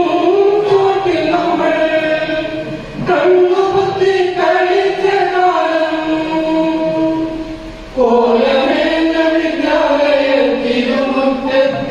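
Group of voices singing a slow, melodic song together in long held notes, with short breaks between lines about three seconds in and again near eight seconds.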